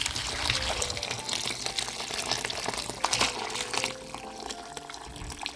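Cooking in a pot: a steady watery hiss full of small crackles, growing gradually quieter.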